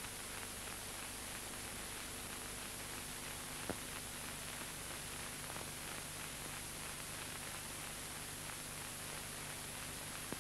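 Steady hiss of an old film soundtrack with a faint low hum and light crackle, and one sharper click a little over a third of the way in.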